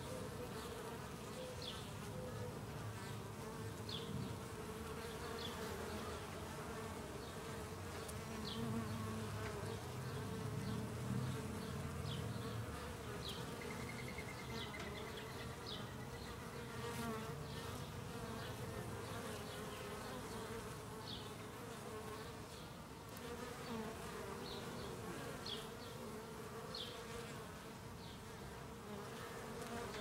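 Honeybees buzzing at a hive entrance, many wingbeats blending into a steady hum. The buzz swells louder for a few seconds around the middle as a bee flies close.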